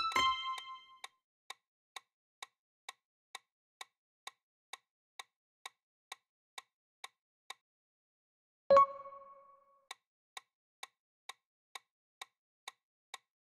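Quiz sound effects: a clock-like tick about twice a second throughout, with a bright ringing chime at the start as the correct answers are shown and a lower two-tone chime about nine seconds in as the next question appears.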